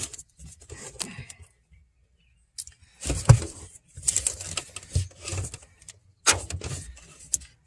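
Short scratchy, hissing bursts and a few sharp clicks while a corroded electronic module's circuit board and connector pins are cleaned.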